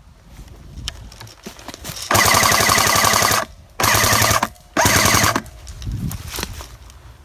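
Airsoft gun firing three fully automatic bursts of rapid shots: a long burst about two seconds in, then two shorter ones in quick succession.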